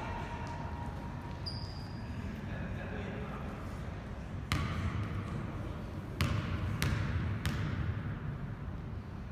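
A basketball bouncing on a gym floor four times in the second half, the last three about two-thirds of a second apart, as a player dribbles at the free-throw line. Voices murmur in the background.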